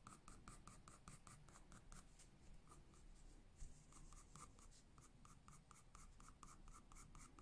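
Graphite pencil scratching on drawing paper in quick, short, even strokes, several a second, as fur is hatched in hair by hair. The sound is faint, with a brief pause a little over halfway through.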